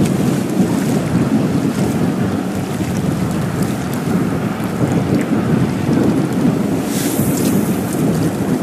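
Wind buffeting the microphone with a steady, fluttering rumble, joined by a brief high hiss about seven seconds in.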